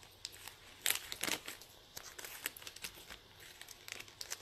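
Packaging being handled: crinkling and rustling with scattered light clicks, loudest about a second in.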